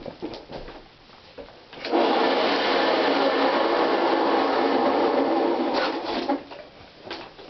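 Motor of a 1960s Hoover Convertible 589 upright vacuum running steadily for about four seconds, starting and stopping abruptly, with light handling clicks before and after.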